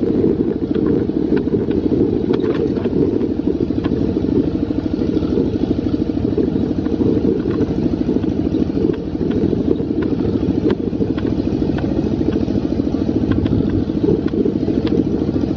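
Tractor engine running steadily with a fast, even chugging as it pulls a loaded passenger trailer along a dirt road, with scattered brief knocks and rattles from the trailer.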